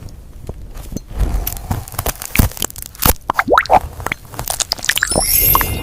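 Gel plugs being pulled out and popped, a fast run of wet popping and crunching clicks with a few quick rising squeaks in the middle. A glassy tinkle comes near the end.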